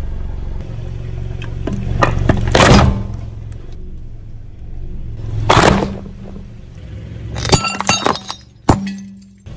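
A vehicle's tyres rolling over brittle objects and crushing them, with the engine humming low underneath. There is a loud crunch about a quarter of the way in and another just past halfway. Near the end comes a quick run of cracking and glassy clinking, then one sharp snap.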